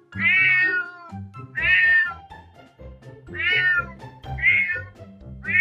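Domestic cat meowing repeatedly, about five meows roughly a second apart, over background music with low sustained notes.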